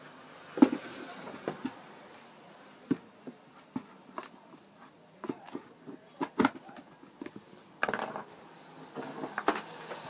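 Irregular sharp clicks and light knocks from hands handling a home theater amplifier circuit board and its wooden speaker cabinet, the loudest about half a second in and a short rattly cluster near the end.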